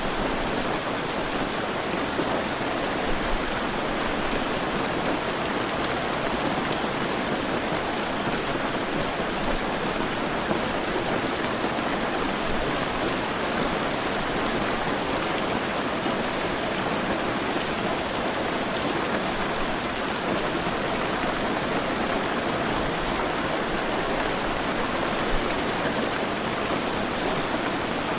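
Heavy rain falling steadily, a dense even hiss with the odd louder drop.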